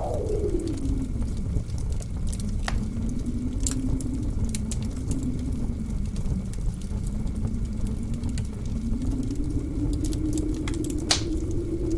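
Blizzard wind howling over a low steady rumble, its whistling pitch dropping sharply just after the start and then slowly rising again. Sharp pops of a crackling wood fire come now and then, the loudest near the end.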